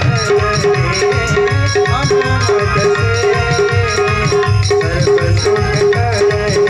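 Indian devotional music: a wavering melody over a steady drum beat, with a repeating high percussive tick.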